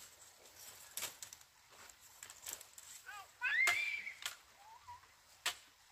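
A few sharp knocks about a second apart, with a brief high-pitched gliding call, the loudest sound, a little past the middle.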